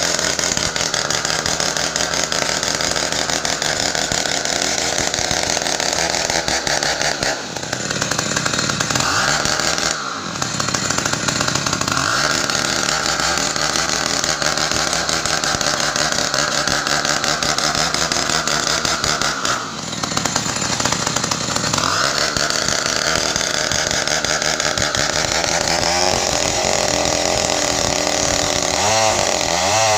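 Large two-stroke 070-type chainsaw, a home-assembled build, running at high revs while cutting ironwood. Its engine pitch drops and recovers three times as it works, and wavers up and down near the end.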